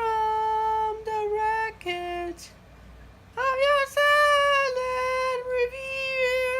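A single voice singing long, held notes of a slow melody without clear words: two sustained notes, a short lower one, a pause of about a second, then a higher line that steps down.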